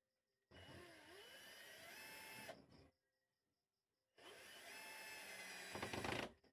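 Cordless drill running into a wooden cabinet face frame in two runs of about two seconds each, its motor whine rising as it speeds up. The second run ends in a brief louder rattle.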